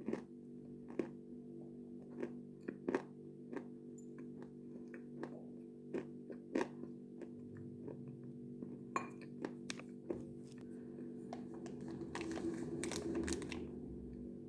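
Pieces of Khrapovsky natural chalk being bitten and chewed: crisp, ringing snaps every second or so, then a longer bout of dense crunching near the end.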